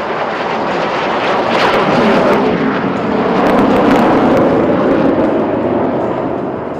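Jet aircraft, BAE Hawk trainers, passing overhead. Their turbofan roar builds to its loudest about four seconds in and eases off near the end, with a falling pitch as they go by.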